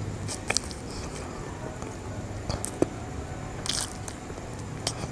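A person chewing a soft, melty brownie topped with chocolate sprinkles and chocolate spread: scattered wet mouth smacks and clicks.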